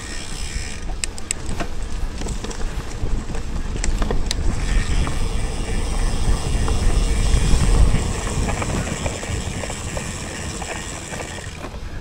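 Mountain bike being ridden over a dirt trail: a steady rumble of tyres and wind with a few sharp rattling clicks from the bike, loudest about halfway through.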